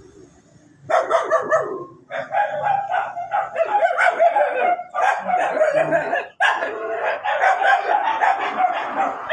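A dog barking rapidly and continuously, starting about a second in, with brief breaks around two and six seconds in.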